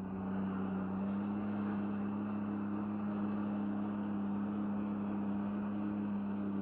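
Jet ski engine running steadily under throttle, pumping water up the hose to a flyboard; a steady drone that gets a little louder about a second in, over rushing water.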